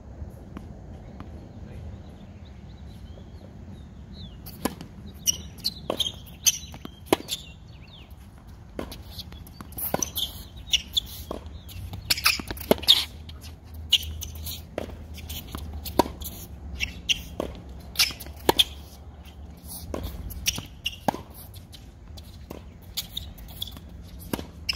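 Tennis rally on a hard court: a string of sharp racket-on-ball hits and ball bounces about a second apart, starting about five seconds in, with tennis shoes squeaking on the court surface between shots.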